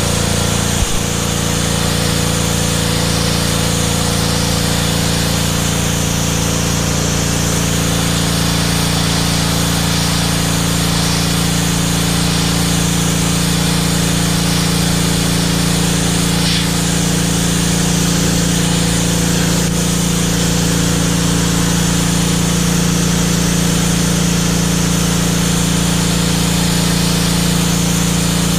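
PowerStroke 2200 PSI gas pressure washer running steadily at full throttle, its small engine humming under the loud hiss of the high-pressure water jet blasting concrete.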